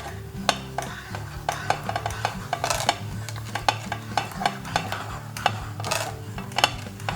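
Hand-cranked food mill pressing boiled potatoes through its sieve: irregular metallic clicks and scraping as the crank turns, with background music underneath.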